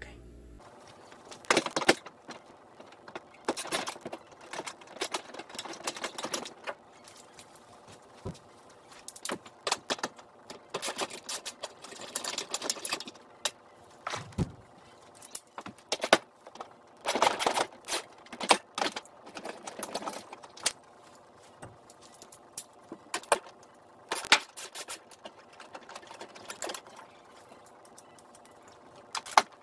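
Hand tools on metal: irregular bursts of clicking and clinking as the wiper motor's mounting screws under the cowl are worked loose and taken out.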